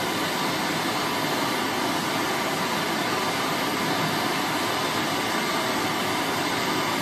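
Steady hiss of two gas torches burning, heating the small end of a connecting rod so the gudgeon pin can be slid through it.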